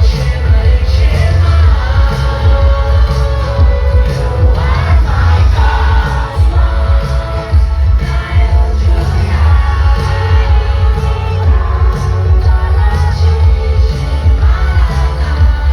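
Live pop music played loud over a concert sound system: a heavy bass beat under a singing voice.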